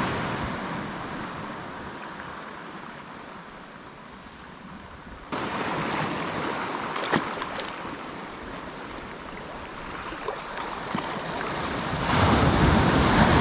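Waves washing on the shoreline, with wind on the microphone; the noise jumps up abruptly about five seconds in and swells again near the end.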